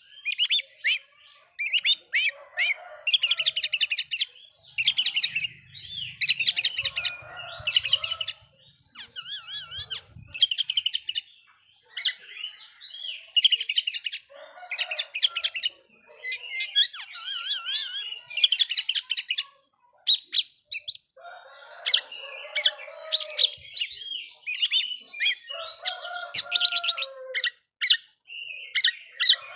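Oriental magpie-robin (kacer) singing a loud, varied song of whistles, fast trills and chattering notes in repeated phrases with short pauses between them. This is the vigorous male song used to provoke rival magpie-robins.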